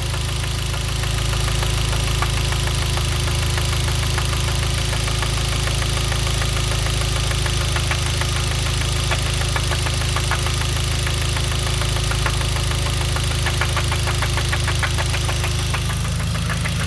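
Genesis 2.0T's turbocharged four-cylinder engine running with a fast, regular knocking, plainest in the second half. This is rod knock from a spun bearing after the oil pump failed to lubricate it.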